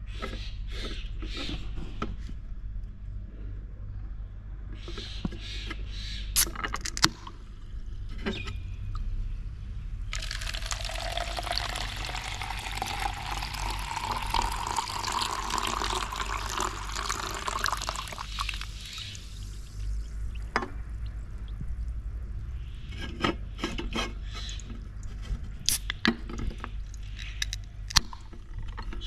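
Club soda poured from a can into a plastic cup for about nine seconds starting ten seconds in, a fizzy splash whose pitch rises steadily as the cup fills. Sharp clicks and taps from handling the can come before and after the pour.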